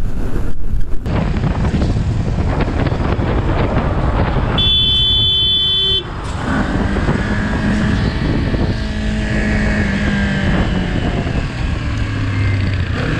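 Motorcycle on the move with heavy wind rush over the helmet microphone. About four and a half seconds in, a horn sounds once for about a second and a half. After that the bike's engine runs under the wind noise, its pitch shifting gently with speed.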